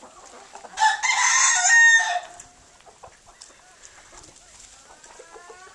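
A young rooster crows once, about a second in: a rough crow lasting about a second and a half. Short clucks from the flock come near the end.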